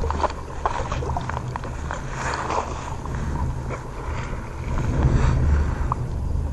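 Wind buffeting a phone's microphone in a heavy, uneven rumble, with short splashes and slaps of water scattered through it.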